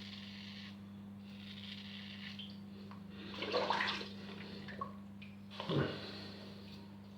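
A razor blade scraping through lathered stubble in short strokes during the last shaving pass. There are two louder short sounds, one about halfway through and a sharper one near the end.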